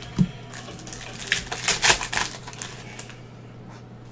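Foil trading-card pack wrapper crinkling and rustling as the pack is opened and the cards are slid out, loudest in the middle and stopping about three seconds in. A single dull knock comes right at the start.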